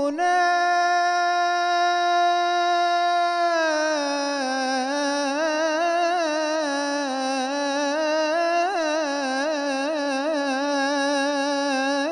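A man singing solo and unaccompanied into a microphone, an Arabic devotional song of supplication. He holds one long steady note for about three and a half seconds, then drops a little lower into a long wavering, ornamented run on a single vowel.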